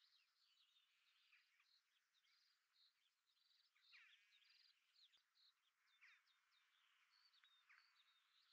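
Near silence, with very faint high chirps scattered through it.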